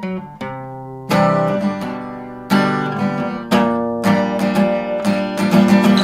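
Acoustic guitar being strummed. A few softer notes come first, then full chords from about a second in, strummed more often in the second half.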